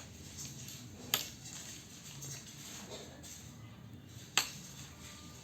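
Two sharp clinks of tableware during eating, one about a second in and another just past four seconds, with faint low background noise between.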